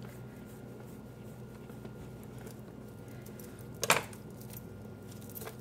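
A metal kitchen knife set down on a wooden cutting board: one sharp clack about four seconds in, over a faint steady hum.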